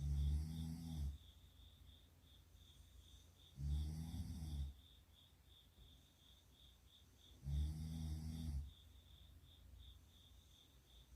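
A sleeping person snoring: three low snores, each about a second long, one roughly every four seconds.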